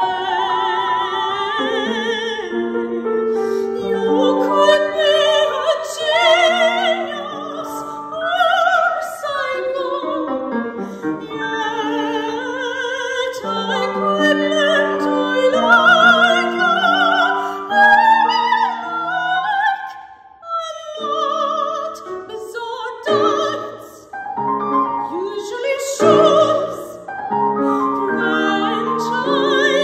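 Female soprano singing a contemporary opera aria with wide vibrato, accompanied by a Steinway grand piano, with a couple of brief breaks in the phrasing about two-thirds of the way through.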